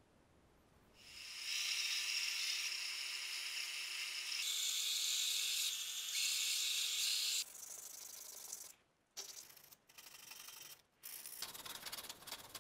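Benchtop belt-and-disc sander running while a knife's phenolic handle is ground against the belt: a loud, even grinding hiss over a steady motor hum. It starts about a second in and stops after about six seconds, and quieter sounds that cut in and out follow.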